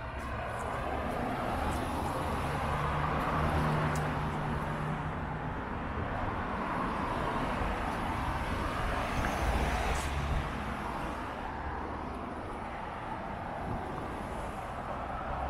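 Road traffic passing close by: cars and a van driving past, with tyre and engine noise that swells and fades, loudest about four seconds in and again about ten seconds in.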